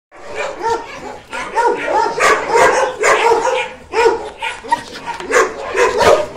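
Dogs barking and yipping in quick succession, short high calls following one another about two to three times a second.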